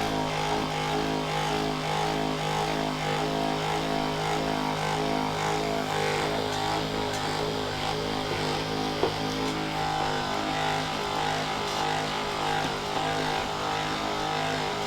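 Electric percussion massager running with a steady mechanical hum as it is worked over the leg and hip muscles.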